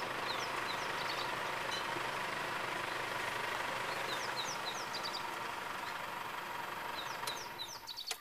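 Game-drive vehicle's engine running steadily, cutting off near the end, with birds chirping briefly a few times over it.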